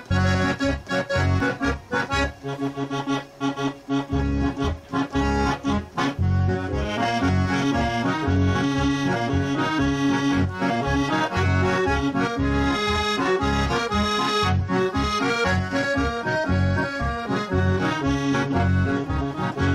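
Piano accordion playing the instrumental introduction of an enka song. It opens with short, detached chords and from about six seconds in settles into a flowing right-hand melody over a steady bass-and-chord accompaniment.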